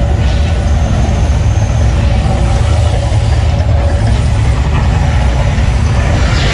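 Mirage volcano attraction erupting, fire jets blazing: a loud, steady, deep rumble with no breaks.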